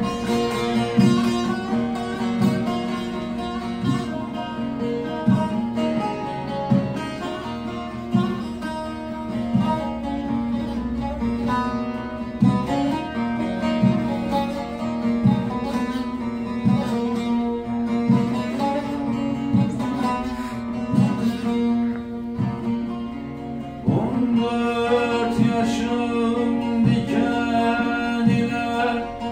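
Two saz lutes, a long-necked bağlama and a smaller short-necked one, strummed and plucked in a steady rhythm over a constant drone, with a man singing a Turkish folk song.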